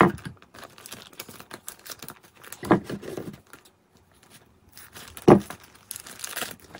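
Plastic parts of a model building kit and their packaging being handled: scattered clicks and rustles with three sharp knocks on the table, and a crinkling of plastic packaging near the end.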